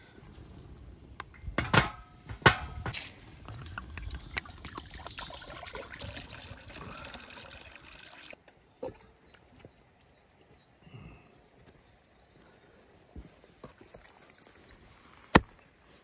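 Water poured in a steady stream into a cast-iron cauldron, splashing on the water already inside, stopping suddenly about eight seconds in. Two sharp knocks come just before the pour, and a single sharp knock near the end.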